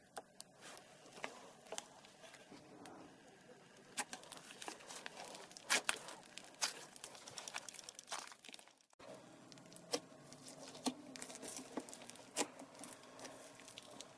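Fingers poking, squeezing and stretching soft slime: sticky squishing with many small pops and crackles, and a short pause about nine seconds in.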